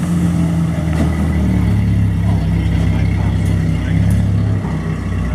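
Car engine running with a steady low hum, easing off about four and a half seconds in.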